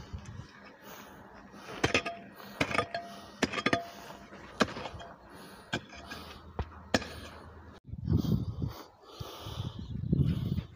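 Footsteps crunching on loose stones and dirt, with scattered sharp clicks and knocks of stones, a few with a brief ringing clink. Near the end come two low rumbling bursts about two seconds apart.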